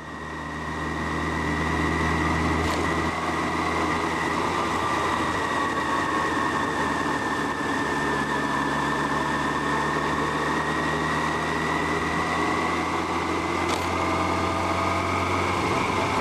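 Yamaha FJR1300's inline-four engine running steadily as the motorcycle cruises, heard from on the bike, with a steady high whine over the engine note. It fades up over the first two seconds, then holds level.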